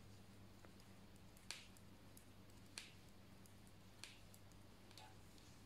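Near silence with faint clicks of metal knitting needles touching as stitches are worked, four soft clicks roughly a second apart over a low steady hum.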